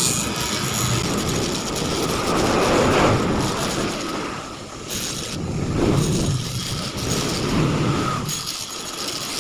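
Rotary grinder porting the exhaust port of an SYM Kewee 125 scooter's cylinder head, a harsh grinding that swells and eases as the bit is worked into the port.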